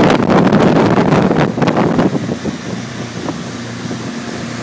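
Motorboat under way, its engine running while wind buffets the microphone. About two seconds in the wind noise drops away, leaving a quieter, steady engine hum.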